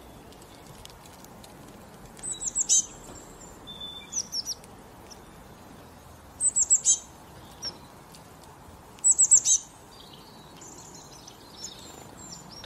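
Small songbird chirping: three quick runs of four or five high, falling notes, about two, six and a half and nine seconds in, with softer twittering between them over a faint steady hiss.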